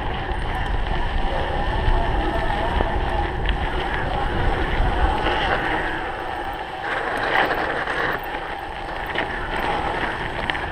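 Wind buffeting the microphone over the rumble and rattle of a cyclocross bike's tyres on rough ground, ridden at race pace.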